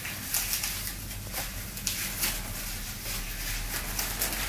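Plastic packaging crinkling and rustling in short, irregular crackles, several a second, as a field hockey goalie pelvic guard is unwrapped and handled.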